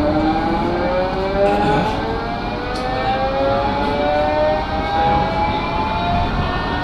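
Blackpool Flexity 2 tram's electric traction drive whining as the tram gathers speed, the whine rising slowly in pitch over a steady low rumble from the running gear.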